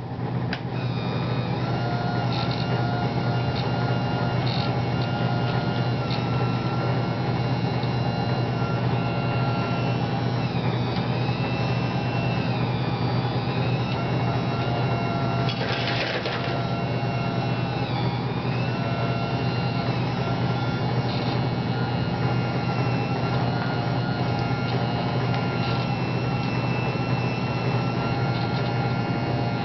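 Small electric motors of radio-controlled model construction equipment whirring steadily, a whine that dips in pitch and recovers twice as the load changes. A brief scraping noise about sixteen seconds in.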